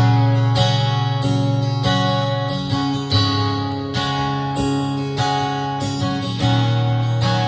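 Overspeed Trans Acoustic solid-top electro-acoustic guitar strummed in chords through a guitar amplifier, its built-in effects switched off. Chords are strummed steadily, with a low bass note ringing under them.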